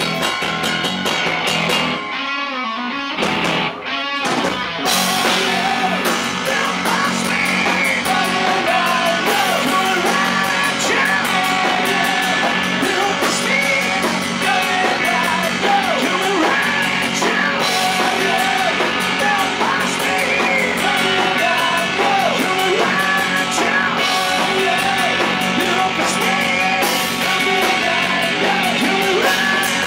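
Live hard rock band playing: distorted electric guitars over drums, heard off the stage amps and monitors. About two seconds in the band thins out briefly, then the full band comes back in.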